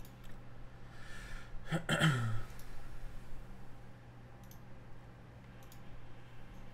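A few scattered light clicks over a steady low hum, with a short falling vocal sound, like a sigh or grunt, about two seconds in.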